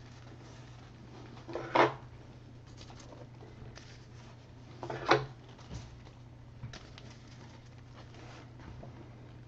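Trading cards and packs being handled on a table: two short, sharp noises about three seconds apart, with a few faint ticks, over a steady low hum.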